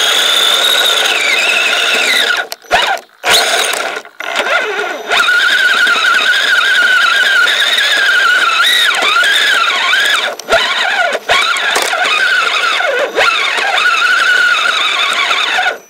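Kyosho Blizzard RC snowcat's electric motor and drivetrain whining under throttle, the pitch rising and falling with speed and cutting out briefly when the throttle is let off, about 2.5 to 4 seconds in and again near the end.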